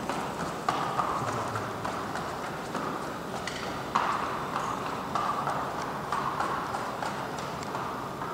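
Horse's hooves clip-clopping at a walk, an uneven run of short knocks. The horse is sound, with no lameness in its gait.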